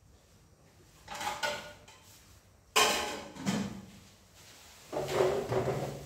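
Kitchenware being handled on a shelf: a few separate knocks and scrapes, the loudest a sharp clack about three seconds in, and a longer stretch of clattering near the end.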